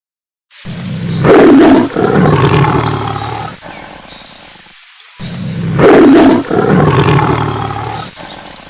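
African lion roaring: two long roars about four seconds apart, each loudest at the start and trailing off over a few seconds.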